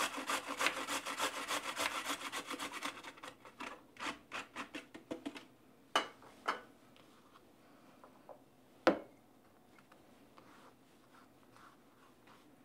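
Fresh ginger root rubbed quickly against a hand grater in rapid rasping strokes that slow and stop after about five seconds. A few sharp knocks follow, the loudest near the end.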